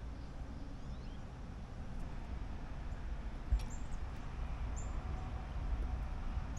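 Outdoor background sound: a steady low rumble with a few short, faint, high bird chirps, and a single knock about three and a half seconds in.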